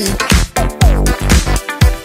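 Background electronic dance music with a steady beat and sliding synth notes that drop in pitch.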